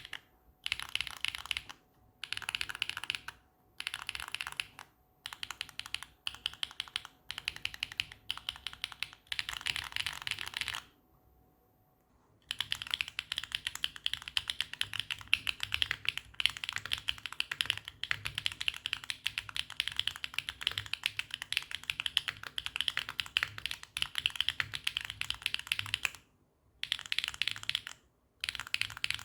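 Mechanical keyboard with HMX Snowfall tactile switches (long-pole POM stems) on a carbon-fibre plate being typed on, a clacky sound. Short bursts of keystrokes with brief pauses first, with the case fully foamed. After a short silence about eleven seconds in, fast continuous typing follows with all foam removed, then bursts again near the end.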